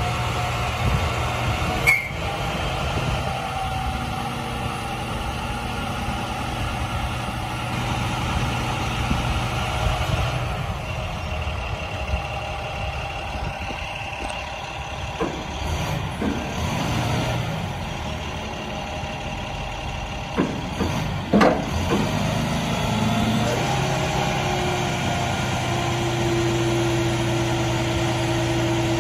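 Diesel engine of a 2006 International 4400 truck running steadily to drive the hydraulics of an Altec digger derrick while its boom is worked. A few sharp knocks come through, about two seconds in and again around twenty-one seconds in, and a steady higher tone joins near the end.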